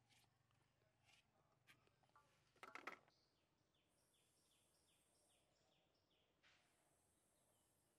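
Near silence: faint yard ambience with a few soft scrapes and clicks of a knife peeling a potato in the first seconds, then a bird giving a quick run of short falling chirps.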